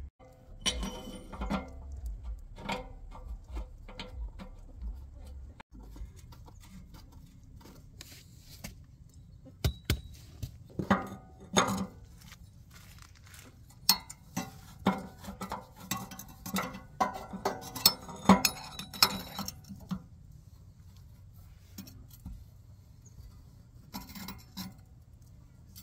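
Intermittent metallic clinks and clatter of a hex-socket anode tool being fitted over a new magnesium anode rod and turned with a screwdriver through it as a bar, tightening the anode into a Suburban RV water heater tank. The clinks come in clusters, the sharpest ones about ten and fourteen seconds in.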